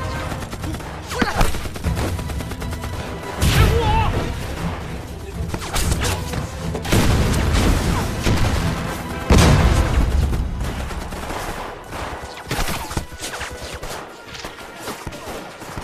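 Battle soundtrack of a war film: scattered gunfire with several heavy blasts about 3.5, 7 and 9.5 seconds in, over film music. The firing thins out toward the end.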